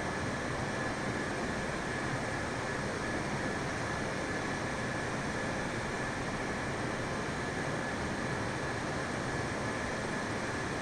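Steady, even rush of jet airliner noise that neither rises nor fades, with a faint high steady tone running through it.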